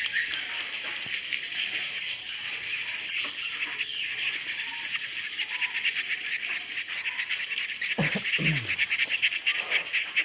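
Swiftlets chirping in a swiftlet house: a dense, continuous high twittering, with a fast run of repeated chirps, about eight a second, from about halfway in. This is the swiftlet roosting call (suara inap) that draws the birds in to roost.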